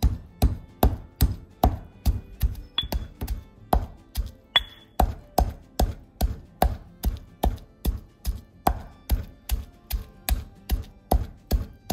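Granite pestle pounding lemongrass and turmeric paste in a granite mortar: a steady run of heavy stone-on-stone thuds, about two and a half strokes a second, a few with a light ringing clink.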